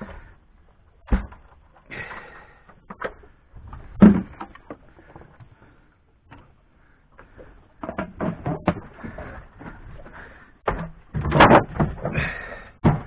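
Scattered knocks and thumps of gear being handled aboard a small boat: single knocks about one and four seconds in, then a busier run of clatter in the second half, loudest near the end.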